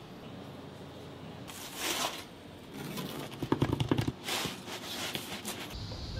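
Rolling pizza cutter slicing through a baked pizza, the crisp crust crackling in a quick run of crunches, after a short rustle about two seconds in. Music starts just at the end.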